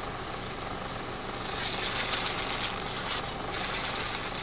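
A light-up ball toy twisted and spun on its stretchy cord, giving a rough, rattling hiss that starts about one and a half seconds in, over a steady low hum.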